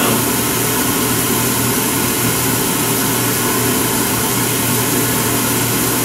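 Beckett oil burner converted to burn waste oil, running steadily in a downdraft furnace: an even rushing noise with a low, constant hum. The burner runs alone, with the furnace's circulation blower still off.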